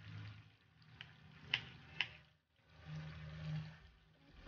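A kitchen knife tapping and cutting on a wooden chopping board: three sharp ticks about a second, a second and a half and two seconds in, over the faint sizzle of chicken frying in oil.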